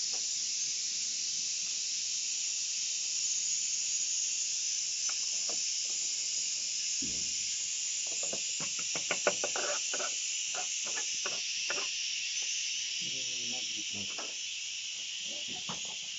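Steady high hiss, with a run of light clicks and knocks from hand tools working on the motorcycle about halfway through.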